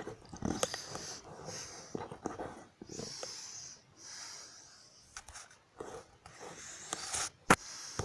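Soft breaths close to the microphone, several in a row, with a few sharp handling clicks as the phone and book are moved. The loudest click comes about seven and a half seconds in.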